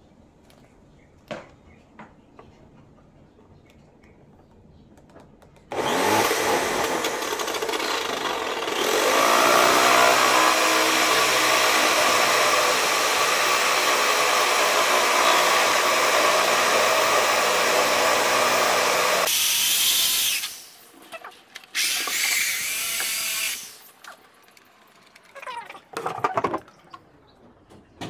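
Electric drill boring a hole through a car's side-mirror housing. The motor starts about six seconds in, speeds up and runs steadily for about fourteen seconds, then stops; a second short run of about two seconds follows.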